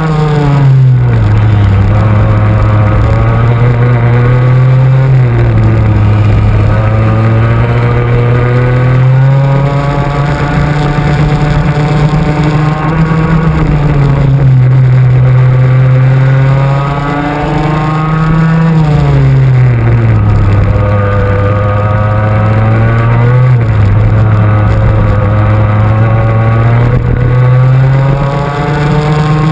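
Two-stroke racing kart engine heard onboard, at racing speed. Its revs climb slowly along each straight and drop quickly for each corner, six or seven times over.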